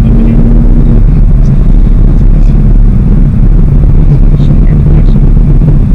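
Steady road and engine rumble inside the cabin of a moving 2016 Chrysler 200C sedan, loud and even throughout.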